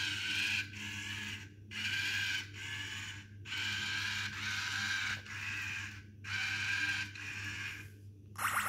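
Makeblock Codey Rocky robot's small geared track motors whirring in a string of short bursts, stopping and starting about once a second as it drives and turns. A short rising chirp comes near the end.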